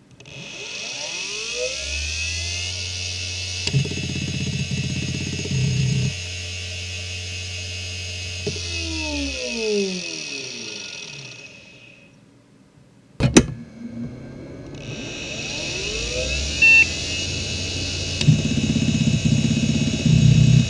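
Samsung Voyager 6 SV0844A 5400 rpm IDE hard drive spinning up with a rising whine, then running with a loud high bearing whine and a few seconds of head-seek chatter, then spinning down with a falling whine. After a short quiet spell and a sharp click, it spins up again and starts seeking.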